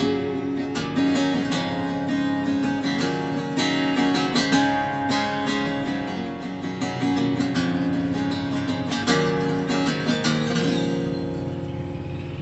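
Acoustic guitar music, strummed and picked with no singing, growing quieter near the end.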